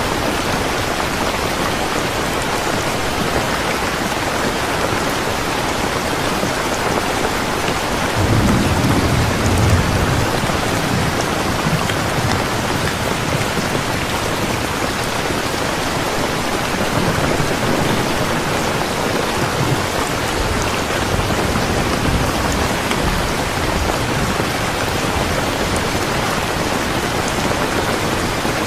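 Steady rain, a dense even hiss, with a low rumble of thunder swelling about eight seconds in and fainter rumbles later.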